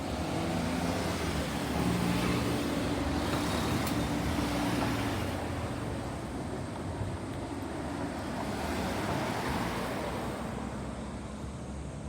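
Road traffic passing, with two vehicles going by, one about two seconds in and another about nine seconds in.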